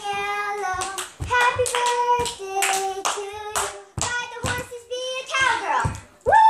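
Two young girls singing a birthday song in held notes, clapping along about twice a second. A loud long note starts near the end.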